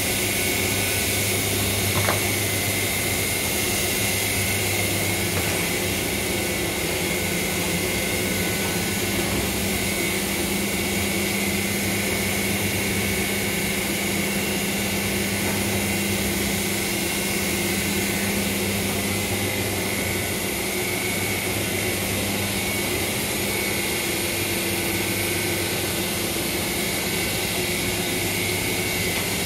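Wohlenberg Golf 18 bookbinding line running steadily, with its gathering stations and conveyors making a continuous mechanical hum under a steady high tone. There is a single light tick about two seconds in.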